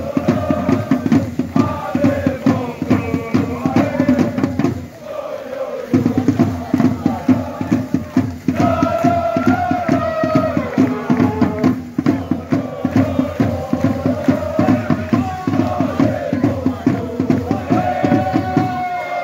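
Football ultras chanting in unison over a steady, rapid drum beat. The drum drops out briefly about five seconds in, then comes back.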